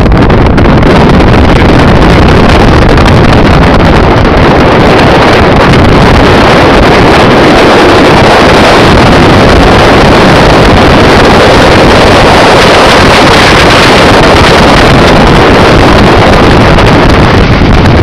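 Strong wind blowing across the camera's microphone: a loud, unbroken rush of noise that pushes the recording close to its limit.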